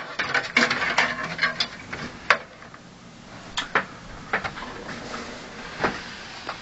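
Hands working on computer parts: rustling and crackling for the first two seconds or so, then a handful of separate sharp clicks and taps.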